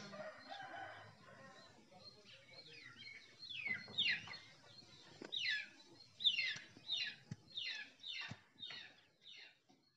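A bird calling over and over in short, falling notes, about one or two a second.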